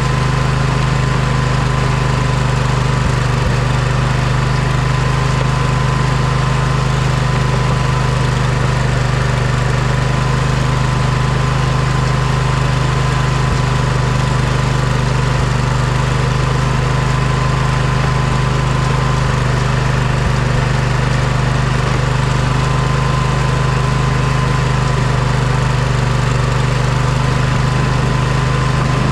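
Poulan riding lawn tractor engine running steadily at constant throttle, with a thin steady whine over the low hum.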